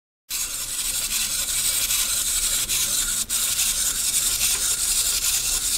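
A steady hiss, strongest in the high range, with a brief dip about three seconds in.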